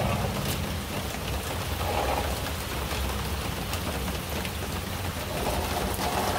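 Heavy rain falling steadily on a wet path and lawn, an even hiss with scattered sharp drop hits.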